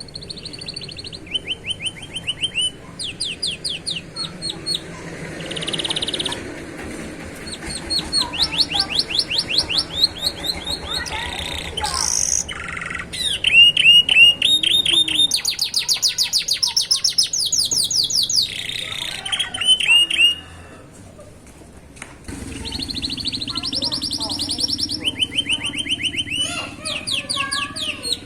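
Young canary singing: rapid trills of repeated high notes, switching to a new phrase every second or two, with a short break about twenty seconds in.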